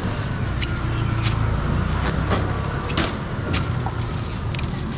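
A motor vehicle's engine rumbling past, swelling for about three seconds and then easing off, with scattered sharp knocks and clatter on top.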